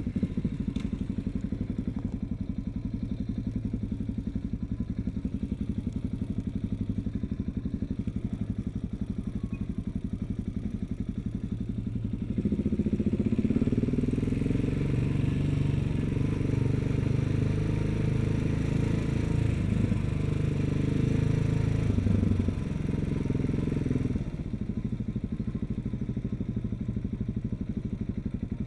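KTM 690 SMC's single-cylinder engine running with a steady low pulse as the bike rides along at low speed. It gets louder and fuller from about twelve seconds in, then eases back to the earlier level a few seconds before the end.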